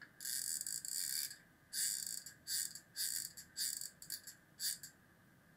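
Hot glue gun being squeezed to lay glue: a series of short scratchy noises, a longer one first and then about seven shorter ones, stopping near the end.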